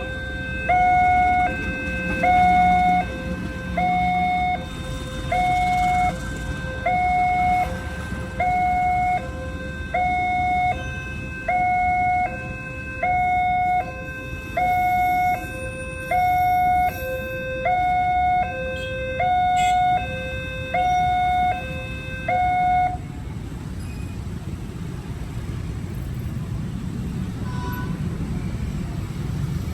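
Level-crossing warning siren sounding a two-tone high-low alternation, each tone held under a second. It cuts off about 23 seconds in, and a low rumble rises near the end.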